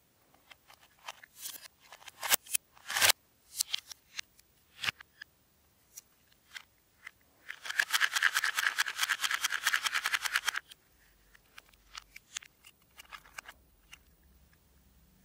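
Hands handling plastic snack packaging and a Nutella & Go! cup: scattered crinkles and clicks, then a dense run of rapid crackling for about three seconds in the middle as the cup is moved, then a few light clicks.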